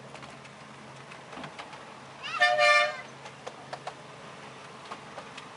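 Miniature 7¼-inch gauge locomotive's horn giving one short toot, about two seconds in, starting with a brief rise in pitch. Faint irregular clicks of the moving train sit under it.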